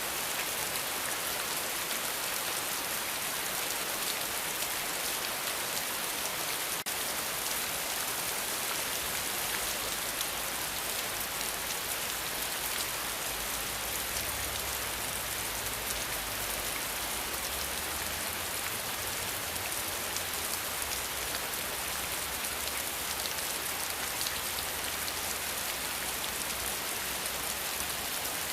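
Steady rain falling, a dense even hiss with many fine drop patters.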